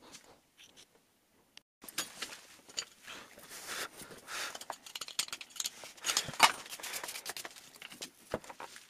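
Sand crunching and scraping with light metal clinks and knocks as a freshly cast aluminium anchor is worked loose and pulled from its sand mould. Faint ticks at first, then the scraping and clinking build from about two seconds in, with one sharper knock past the middle.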